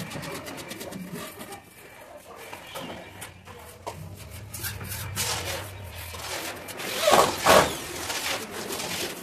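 Scattered clicks, taps and scraping from hand work on a wooden window frame and shutter, with a louder rasping scrape twice in quick succession about seven seconds in. A faint low hum runs for a few seconds in the middle.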